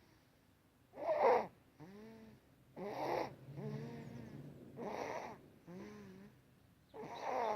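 Sleeping baby's stridor from laryngomalacia: a harsh, noisy rasp on each breath, four breaths about two seconds apart. Each rasp is followed by a short, fainter pitched squeak.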